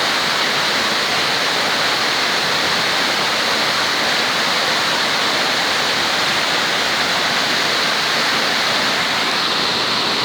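Waterfall: water pouring and rushing steadily, an even, unbroken hiss with no change in level.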